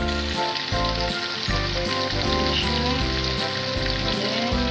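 Sliced onions and tomatoes sizzling steadily in hot oil in a frying pan, over background music with a stepping melody and a bass line.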